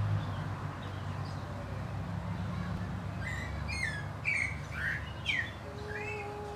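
Wild birds chirping in a handful of short, quickly rising and falling calls over a low steady background rumble, starting about three seconds in. Near the end a steady held tone comes in.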